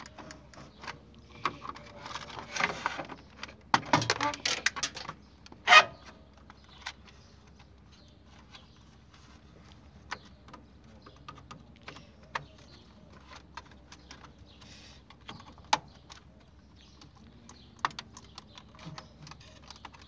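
Flat-blade screwdriver prying and scraping at the plastic locking catches of a washing machine's control-board housing, with plastic clicks and snaps as the catches give. The clatter is busiest in the first six seconds, then thins to occasional single clicks.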